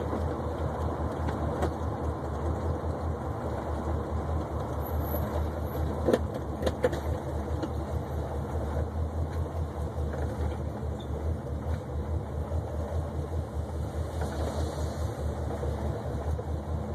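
1972 Oldsmobile 442's V8 engine running steadily as the car drives along, with a low, pulsing exhaust note. Two short knocks come about six and seven seconds in.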